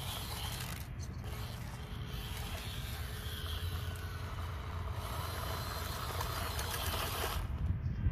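Hobby Plus CR-18 1/18-scale RC crawler's brushed electric motor and gears running steadily as the truck works its way over rocks, under a low rumble.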